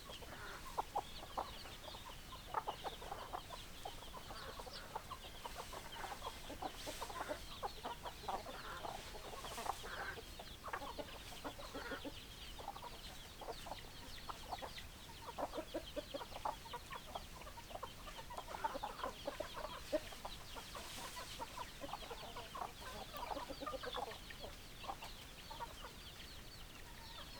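A flock of hens clucking: many short calls overlapping, with no pause.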